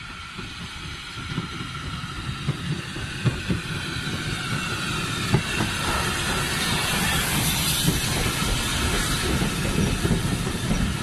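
LSWR T9 4-4-0 steam locomotive approaching and running past hauling coaches, getting steadily louder, with the rumble and clicking of wheels on the rails. A strong steam hiss comes as the engine goes by about seven seconds in, then the coaches roll past.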